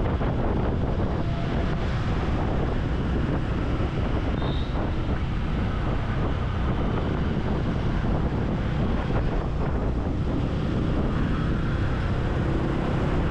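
Steady wind rush on the microphone of a moving motorcycle, with the motorcycle's engine and road noise underneath.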